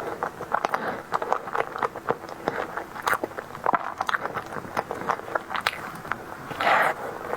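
Close-up chewing of a soft tiger skin dessert: a steady run of many quick mouth clicks and smacks, with a short louder rush of noise near the end.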